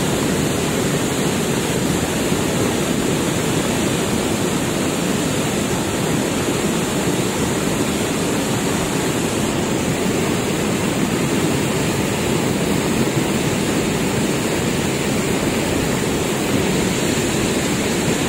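Cold lahar flood, a volcanic mudflow of water and debris, rushing down Mount Semeru's river channel as a loud, steady torrent while it is still rising, with heavy rain falling.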